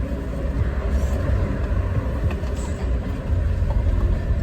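Steady low rumble, like a moving car heard from inside.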